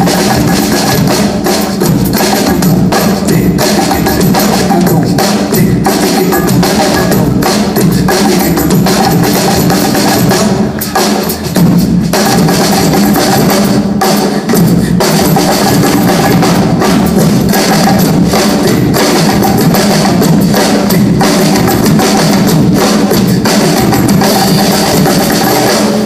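Two drum kits played together along with a backing track over a PA: loud and continuous, a dense groove of drum strokes over the track's sustained tones.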